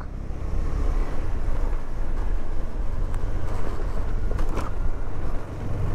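KTM 390 Adventure motorcycle on the move: wind rushing over the rider's microphone with a steady low rumble from the ride underneath.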